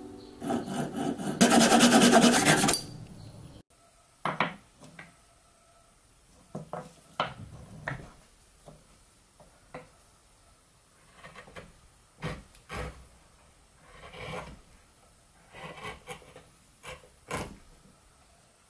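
A hand saw cutting through a chestnut block for about three seconds, loudest in the middle. It breaks off abruptly and is followed by a dozen or so short, separate chisel cuts into the chestnut, each a brief scraping slice, spaced irregularly with quiet pauses between.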